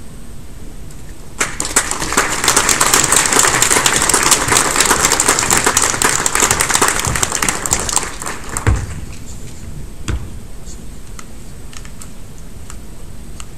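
Audience applauding in a large hall: the clapping starts about a second and a half in, holds for about six seconds, then dies away. A couple of dull thumps follow near the end.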